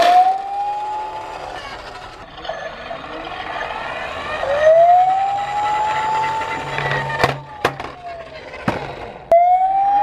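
Emergency-vehicle wail siren: a tone rises, holds high, then falls, three times over. A few sharp clicks come near the end, and the last rise starts abruptly.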